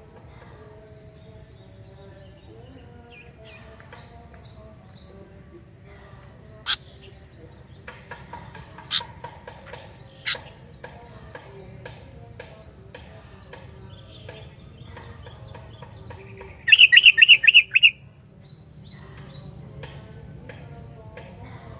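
Sooty-headed bulbul calling: scattered faint chirps and three sharp single notes, then a loud rapid run of about eight notes near the end.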